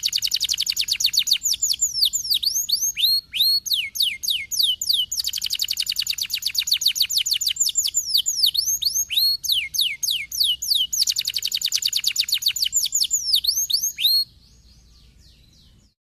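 Domestic canary singing: fast rolling trills of rapid down-sweeping notes alternating with slower, slurred whistled notes. The song cuts off abruptly about two seconds before the end.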